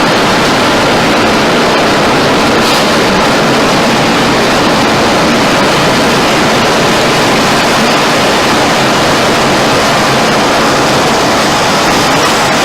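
Tornado wind: a loud, steady rushing noise with no break, like a passing freight train.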